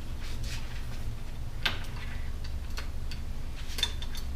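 A few scattered light clicks and taps of small parts being handled as the throttle cables come free of the handlebar switch housing, over a steady low hum.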